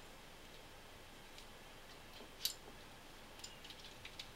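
A few light metallic clicks from the small steel parts of a Ruger 10/22 trigger group being worked loose by hand. One sharper click comes about halfway through, then a quick cluster of small ticks near the end.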